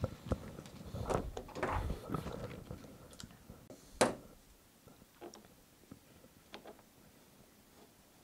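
Plastic bicycle pedals being handled and fitted: light clicks and rattles of plastic and metal, one sharp click about four seconds in, then a few faint ticks as a pedal spindle is brought to the crank arm's thread.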